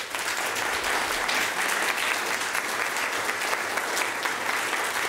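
Audience applauding: many hands clapping steadily in a hall at the end of a talk.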